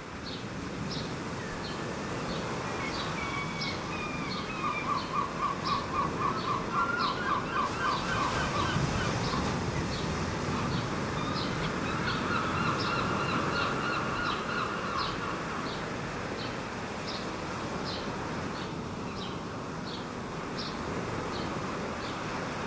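Birds calling at the seashore: a short high chip repeated about one and a half times a second, and two runs of a rapid rattling trill, a few seconds in and again near the middle. Under them is a steady wash of small waves on the water.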